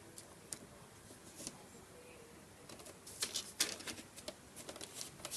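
Sheets of printer paper rustling and crinkling under a cat's paws: a few soft rustles at first, then a quicker run of crackles in the second half.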